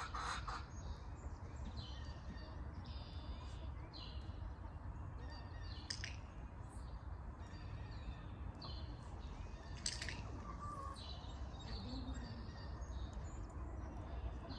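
Birds chirping in short repeated calls over a steady low rumble of wind on the microphone, with two brief sharp sounds about six and ten seconds in.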